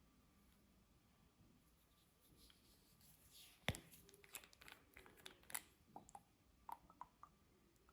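Faint close-up handling sounds: one sharp click about three and a half seconds in, then a run of small clicks and crackles for about three seconds.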